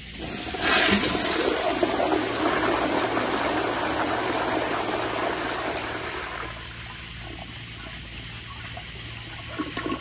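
A Sloan Regal flushometer flushing a 1992 Kohler Kingston wall-hung siphon-jet toilet at full water pressure: a sudden loud rush of water about half a second in, easing off after about six seconds into a lower, steady wash as the bowl drains and refills.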